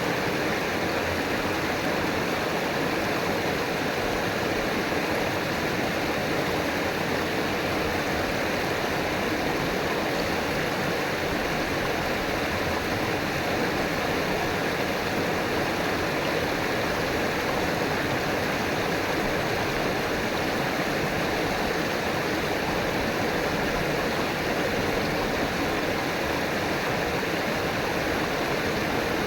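River water flowing over rocks: a steady, unbroken rushing and gurgling.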